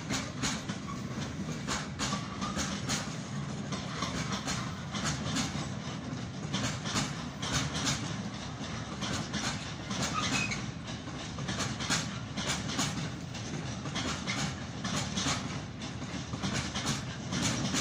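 Freight train of empty flat wagons rolling past, the wheels clicking over rail joints in an uneven clatter over a steady rumble.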